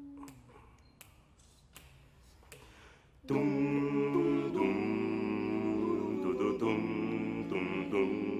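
Male vocal group singing close-harmony chords without words, coming in suddenly about three seconds in after a near-quiet pause with a few faint clicks, then holding sustained chords that shift to a new chord a little later.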